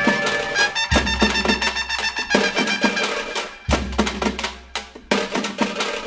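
Background score music with repeated percussion strikes over sustained pitched tones, with heavy low drum hits about a second in and again near four seconds.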